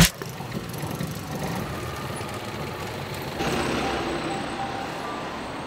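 Street traffic noise with engines running steadily; a louder vehicle passes about three and a half seconds in.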